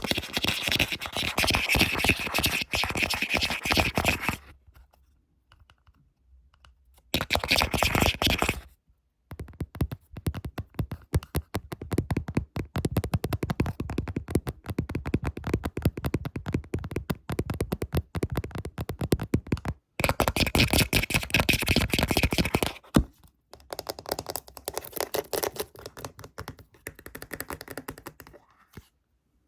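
Close-miked ASMR tapping and scratching: bursts of fast scratching alternate with long runs of rapid tapping, with a pause of a couple of seconds about four seconds in.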